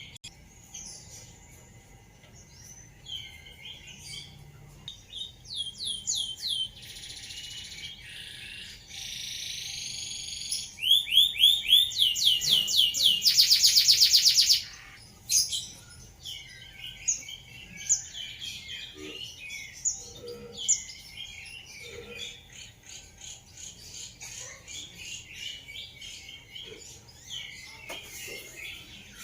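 Domestic canary singing a long, varied song: series of repeated rising whistled sweeps, then a loud, very fast rolling trill about eleven seconds in that lasts some three seconds, then softer twittering and chirping notes.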